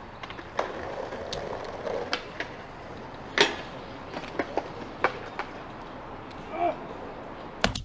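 Skateboard wheels rolling on concrete, then a sharp crack about three and a half seconds in and a run of knocks and clatters as a failed frontside boardslide throws the skater off and the board and rider hit the ground.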